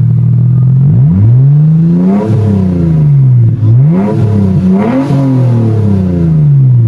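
Mitsubishi Eclipse engine through a newly fitted Invidia N1 cat-back exhaust, idling and then revved three times in quick succession, each rev rising and falling before settling back to idle.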